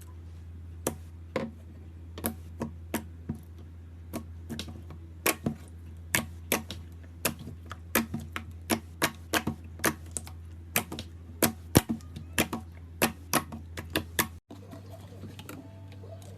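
Slime being poked and pressed, giving sharp clicking pops at an irregular pace of about two a second. The pops stop with an abrupt cut near the end, over a steady low hum.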